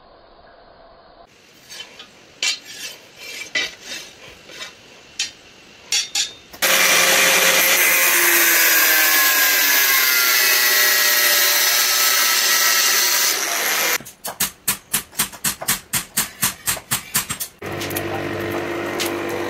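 Metalworking on leaf-spring steel. A few irregular scrapes and knocks come first, then a power tool grinds the steel loudly for about seven seconds, its whine sliding in pitch as it bites. A quick run of even strikes follows, about four or five a second, and near the end a motor runs with a steady hum.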